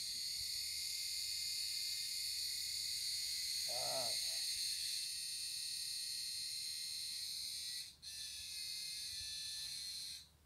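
An insect's steady, high-pitched buzzing song. It breaks off briefly about eight seconds in, starts again and stops abruptly just before the end. A short, lower wavering call sounds once about four seconds in.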